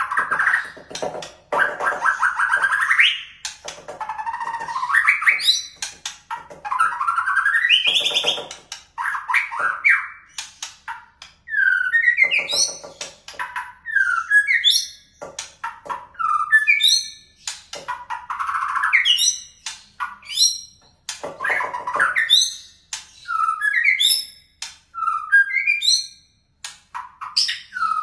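White-rumped shama singing a long run of varied whistled phrases, many of them quick rising or falling sweeps, with short pauses between.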